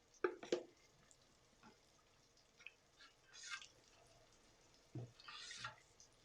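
A spoon stirring a thin mix of coconut milk and spice powder in a bowl: two clinks near the start, then a few soft, wet swishes.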